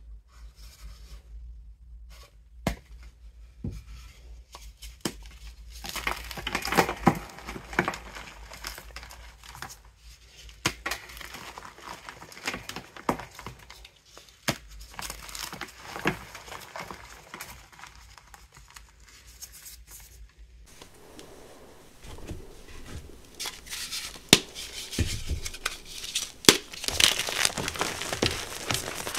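Reformed gym chalk blocks, dusted with glitter, being squeezed and crushed by hand: irregular dry crunching and crumbling with sharp cracks as the blocks break, busiest about a quarter of the way in and again near the end.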